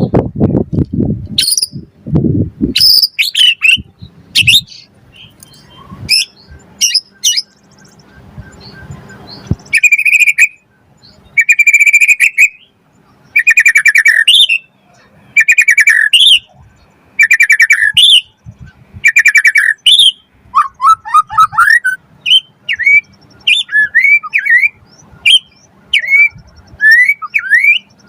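White-rumped shama (murai batu) singing loudly in separate phrases: a run of buzzy trilled notes repeated about every second and a half, then quick varied whistles gliding up and down. A few low thumps at the start.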